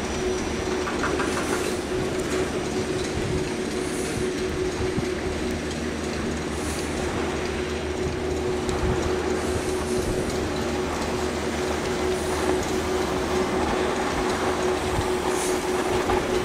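Skis sliding and scraping over packed snow, a steady rumbling hiss with a constant low hum running through it.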